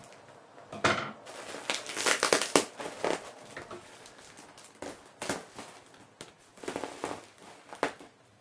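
Plastic parcel wrapping and packing tape crinkling and tearing as they are cut with scissors and pulled apart by hand, in irregular bursts of sharp crackling.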